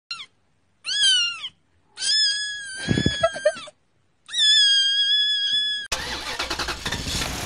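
A kitten meowing high-pitched three times: a short meow, then two long drawn-out ones. About six seconds in, the meows give way to a car's steady engine and road noise.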